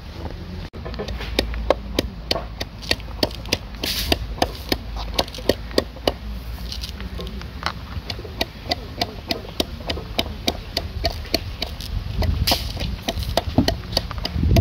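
Kitchen knife chopping vegetables, the blade knocking on the surface beneath in a steady run of sharp strikes, about four a second.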